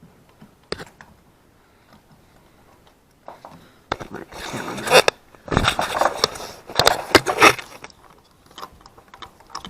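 Spark plug socket and extension clicking and scraping against metal in irregular bursts, mostly in the second half, as a new plug is worked down into a rear cylinder of the Honda V6.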